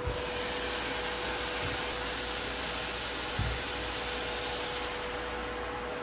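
Meat sizzling in an uncovered pot on an induction cooktop: a steady hiss that starts as the lid comes off and eases near the end, over a steady hum. A soft knock about three and a half seconds in.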